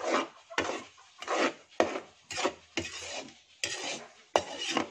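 Metal ladle scraping and stirring dry flour in a metal wok, a run of rasping strokes about eight times in a few seconds. The flour is being toasted for polvoron and is near the end of cooking, starting to brown.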